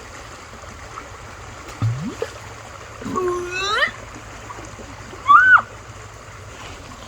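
Creek water running steadily over shallow rapids, with splashing. A person's short wordless vocal sounds rise in pitch about two and three seconds in, then a brief high squeal about five seconds in, the loudest sound here.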